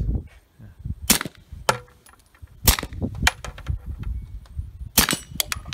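Handgun shots fired at steel targets: three loud shots a couple of seconds apart, with fainter sharp cracks between them.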